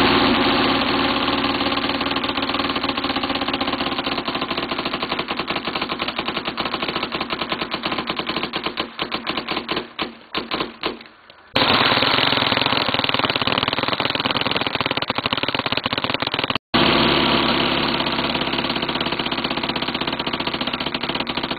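Autococker paintball marker firing full auto: a continuous stream of shots, too rapid to count. About nine seconds in the firing sputters into short bursts and stops, then picks up again a second or two later, with one more brief break near the end.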